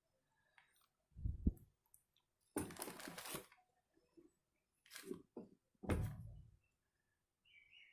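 Parts and tools handled on a work surface: a few separate knocks and thumps, with a short scraping rustle between them.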